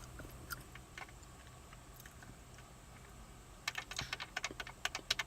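Faint scattered clicks, then a quick, irregular run of taps like typing on a keyboard, starting about two-thirds of the way through and lasting a couple of seconds.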